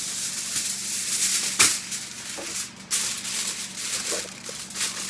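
Sheet of aluminium foil crinkling and rustling as it is handled and folded, a dense irregular crackle with one sharp, louder crinkle about a second and a half in.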